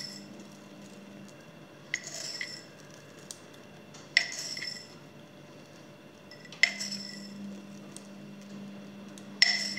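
Small glass jar clinking four times, a couple of seconds apart, each with a short ring, as pinches of pearl sugar are taken from it and sprinkled onto brioche dough.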